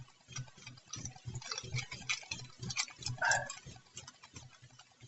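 Light, irregular clicks and taps of small plastic model-kit parts being handled and sorted on a work surface.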